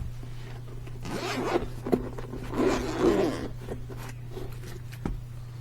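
Zipper of a goggle carrying case being pulled open in two strokes, a short one and then a longer one, with a few small clicks as the case is handled.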